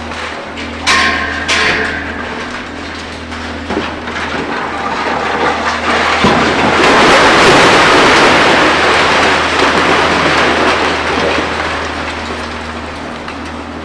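Concrete and steel debris crashing down from a high-rise under demolition. Two sharp crashes with a metallic ring come about a second in. Then a long, loud, dense crashing of falling rubble swells to its peak in the middle and slowly dies away.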